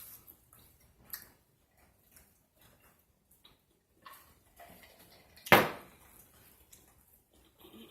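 Close-miked chewing and lip smacking on a burger: scattered soft wet clicks, with one much louder sharp noise about five and a half seconds in.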